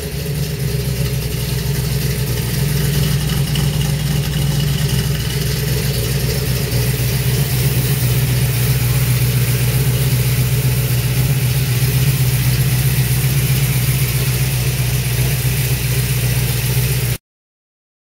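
Freshly rebuilt carbureted V8 in a Chevy II Nova idling steadily, getting a little louder about two seconds in. The sound cuts off suddenly about a second before the end.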